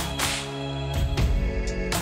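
Background music: sustained synth chords over a deep bass, punctuated by sharp percussion hits about once a second.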